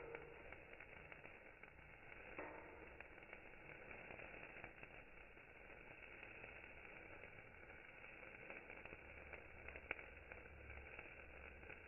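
Faint, steady fizzing and crackling of a burning sparkler, with a few small sharp ticks.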